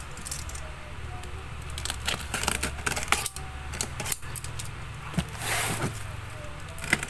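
Clicks, taps and rustling from cardboard boxes and packaged goods being handled, with a scratchy rustle of cardboard or packaging about five and a half seconds in.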